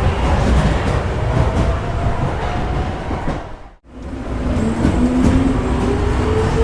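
Subway train pulling out: a heavy low rumble of the cars with the traction motors' whine rising in pitch as it speeds up. The sound fades out quickly just before four seconds in, then starts again straight away, as a looped recording does.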